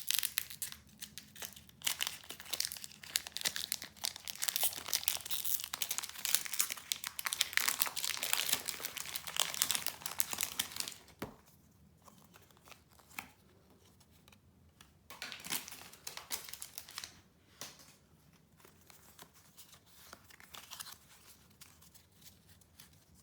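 Foil Pokémon TCG booster pack wrapper being torn open and crinkled, dense crackling for about the first eleven seconds. After that come fainter, scattered rustles.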